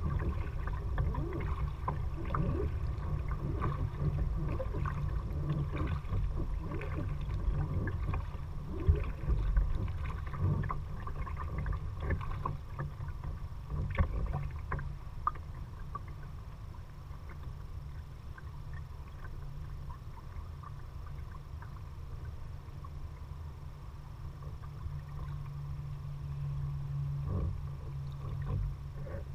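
Kayak paddling: water splashing and dripping from the paddle in many small splashes, busier in the first half and thinning out later, over a steady low rumble on the microphone.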